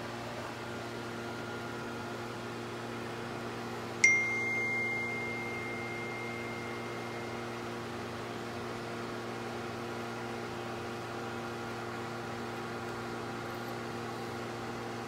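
A steady electrical hum throughout. About four seconds in, a single sharp metallic ping rings on as a clear high tone for about three seconds.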